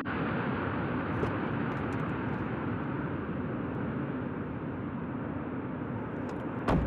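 A steady rushing noise throughout, with a few faint clicks about a second in; near the end a car door slams shut with one sharp thud.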